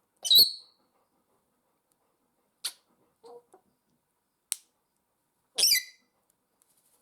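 African grey parrot giving two short, harsh squawks, one just after the start and one near the end, with a few sharp clicks and a brief low call between them.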